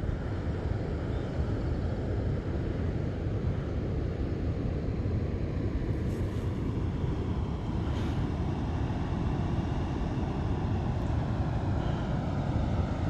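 Floodwater being let out of a lake through a dam's release gates, rushing steadily in a dense, unbroken low rush.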